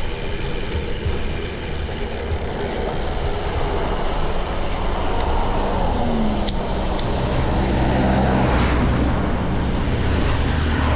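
Road traffic: motor vehicle engines running and passing over a steady road noise, with an engine growing louder in the second half.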